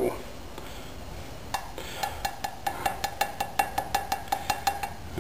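A quick run of light clinks, about five a second, beginning about a second and a half in, each with a short ringing tone: a spoon striking a glass jar while hydrated lime is stirred into vinegar.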